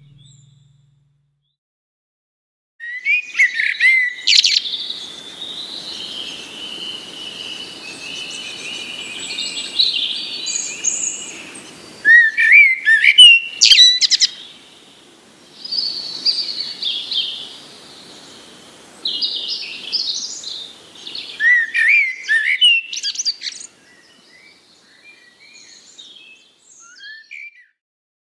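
Wild songbirds singing: repeated song phrases and chirps over a faint hiss, starting about three seconds in after a quiet opening, and breaking off and resuming a few times.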